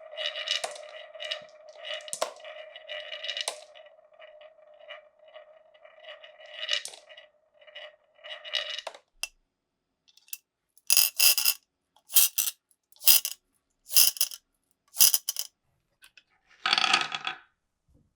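Glass marbles rolling along a wooden marble run with a steady rolling hum and small clicks, which dies away about nine seconds in. Then come five sharp clattering knocks about a second apart, and a last, longer clatter with a ringing tone near the end.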